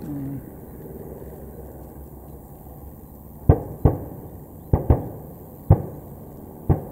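Six sharp bangs from airshow pyrotechnic charges bursting in the air, coming irregularly over about three seconds starting halfway in, two of them almost together. A steady low rumble runs underneath.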